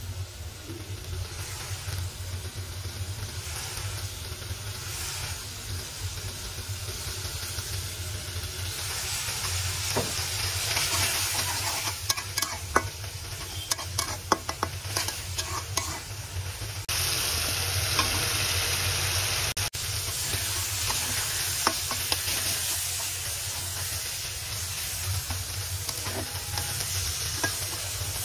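Onion-and-tomato masala, then prawns, frying and sizzling in a metal karahi while a spatula stirs and scrapes the pan. Sharp clicks of the spatula against the metal come often through the second half.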